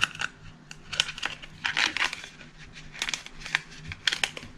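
Hands handling a heat-shrink sleeve and cable connector parts: irregular crinkling and rustling with small sharp clicks, over a faint steady low hum.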